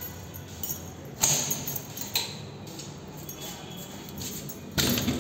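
A few sharp clicks and knocks over steady room noise: a loud one about a second in, smaller ones around it, and a longer, louder cluster near the end.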